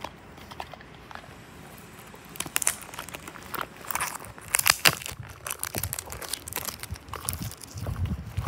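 Packaging handled by hand: a small cardboard Tomica toy-car box being opened and its plastic-wrapped die-cast car and paper insert pulled out, making crinkling and crackling. It starts about two seconds in and is busiest around the middle.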